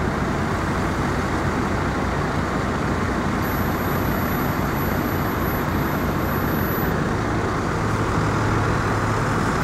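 Steady city street traffic noise, a continuous wash of passing vehicles, with a low steady engine hum joining about seven seconds in.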